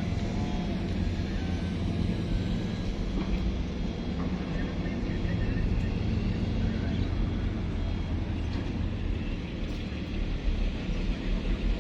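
Diesel engine of a Hitachi 870 large hydraulic excavator running steadily, a low rumble that grows louder and more uneven near the end.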